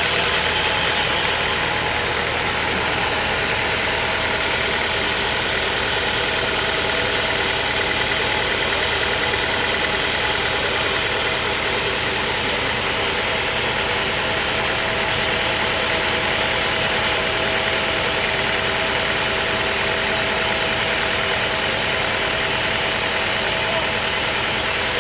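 Sawmill machinery running steadily: an engine with a constant drone and a steady whine over a hiss, unchanging throughout.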